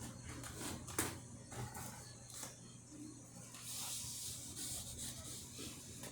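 Cardboard being handled and pressed together as a glued panel is fitted into place: soft rubbing and scraping with a couple of light knocks, and a longer rubbing hiss about four seconds in.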